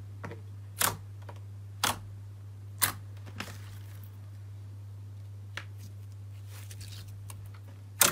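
Fingers poking into a thick, glossy gold slime, giving sharp pops about once a second, then a few softer crackles and pops as the dimpled slime is stretched. A steady low hum runs underneath.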